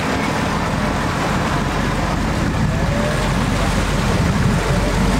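Sportfishing boat's engine running, a steady low rumble.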